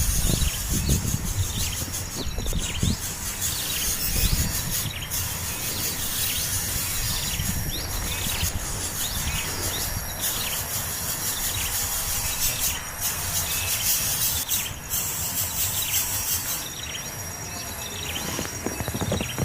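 Small birds chirping over and over in short, high, falling notes, over a steady hiss of rain and a low rumble. A steady high whine joins near the end.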